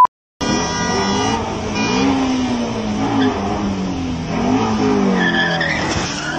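A short test-tone beep cuts off at the start. Then a Ford Mustang sports car's engine revs over and over, its pitch rising and falling with each rev.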